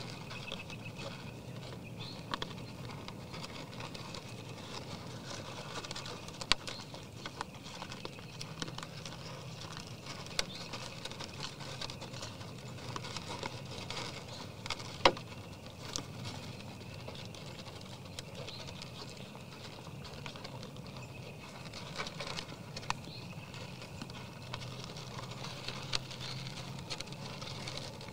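Whitetail deer feeding from a feeder pan: a steady patter of small clicks and crunches as they nose and chew the feed, with a few sharper knocks, the loudest about halfway through, over a low steady hum.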